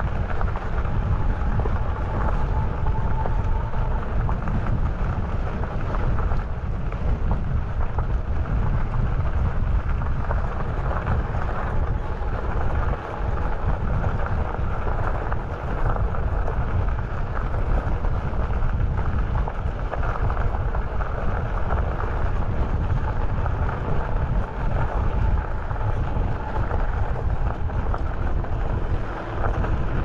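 Wind buffeting the microphone of a camera on a moving bicycle: a steady, gusty rumble.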